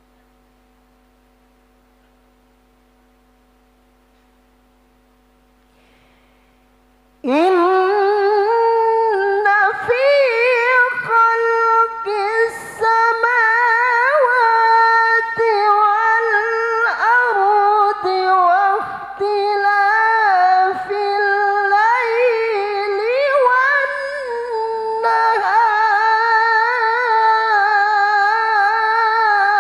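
A male qari reciting the Quran in a high, melodious voice through a handheld microphone, with long ornamented held notes. The recitation begins about seven seconds in, after a faint steady electrical hum.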